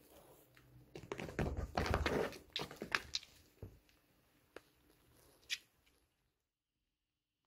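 A cat pawing and biting at a hard treat on a wooden floor: a busy run of scuffs, taps and sharp clicks, then two single clicks, then the sound cuts off to silence about six seconds in.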